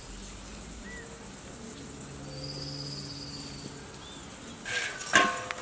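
Outdoor ambience with a steady hiss and a few brief bird chirps, then a short, loud clatter near the end.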